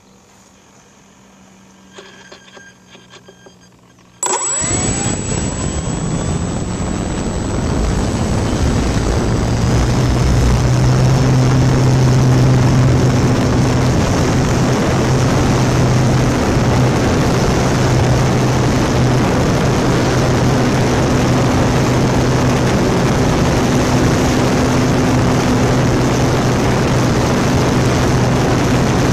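Electric motor of an E-flite Apprentice RC trainer plane starting abruptly about four seconds in with a short rising whine, then running steadily at full throttle, propeller and rushing air loud on the wing-mounted camera through takeoff and climb.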